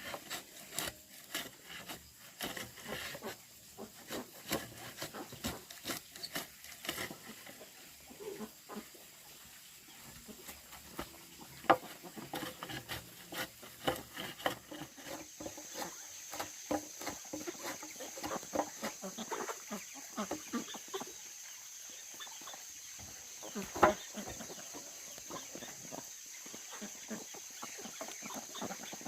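Irregular knocks and rubbing of wood being handled, with two sharper knocks, one near the middle and one late on, and chickens clucking. A steady high-pitched tone starts about halfway through.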